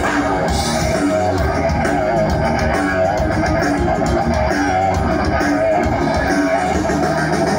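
Live hard rock band playing an instrumental passage: electric guitar lines with vibrato over bass guitar and drums, loud and steady.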